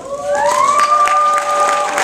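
Audience applauding and cheering. Several voices rise into long held whoops as the clapping builds.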